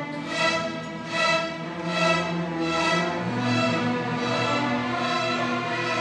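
Massed string orchestra of violins, violas, cellos and double basses playing together. The strings swell in regular strokes about once a second for the first half, then settle into held chords as the bass line moves lower.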